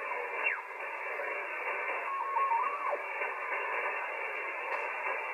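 Icom IC-7300 receiver audio on 20-metre upper sideband while the tuning knob is turned: steady band-noise hiss with a narrow, muffled, top-cut sound. Short whistling tones slide down in pitch as signals are tuned past, one about half a second in and another about two to three seconds in.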